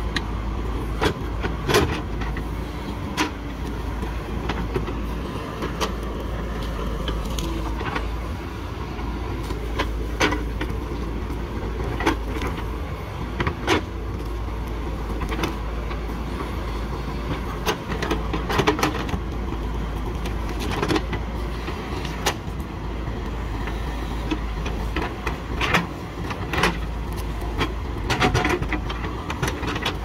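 JCB 3DX backhoe loader's diesel engine running steadily with a deep rumble as the backhoe arm digs out tree roots. Short sharp knocks and cracks come at irregular intervals every second or two.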